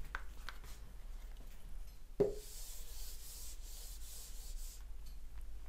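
Whiteboard eraser wiping across a whiteboard: a soft knock about two seconds in, then a steady rubbing hiss for about two and a half seconds.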